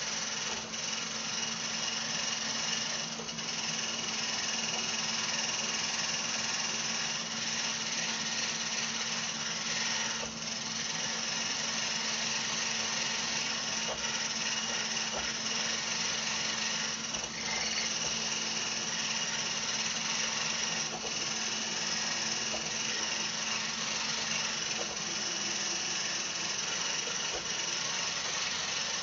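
Handheld immersion blender with a whisk attachment running on high, whisking milk and instant coffee into a froth: a steady motor hum that dips briefly a few times.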